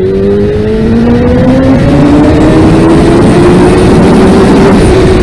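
Motorcycle engine pulling under acceleration, its pitch rising for about the first two and a half seconds and then holding steady, over loud rushing noise.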